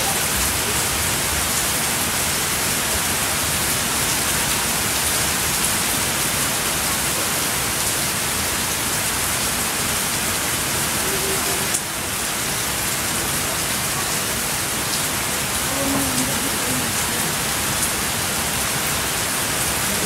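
Heavy tropical rain pouring steadily onto garden foliage and a wet tiled patio, a dense, even hiss of falling water.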